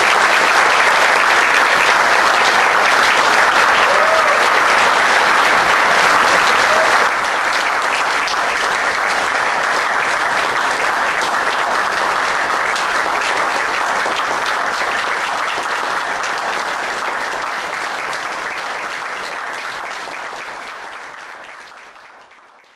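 Audience applauding steadily. The clapping drops slightly about seven seconds in and fades out near the end.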